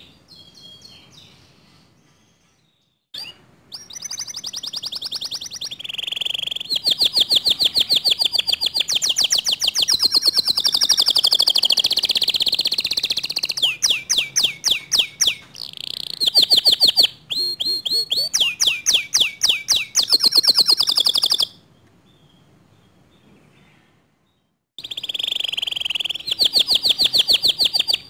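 Domestic canary singing in long runs of fast repeated trilled notes. The song breaks off for a couple of seconds near the start and again near the end. It is a canary song of the kind played to provoke other canaries into full, continuous song.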